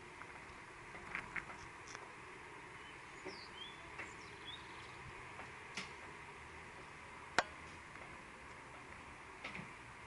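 Quiet outdoor background: a faint steady hiss broken by a handful of sharp, isolated clicks, with a few short high chirps about three to four seconds in.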